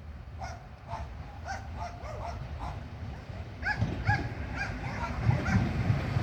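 A dog barking and yipping in quick, uneven short calls, two or three a second. A low rumble builds underneath in the second half.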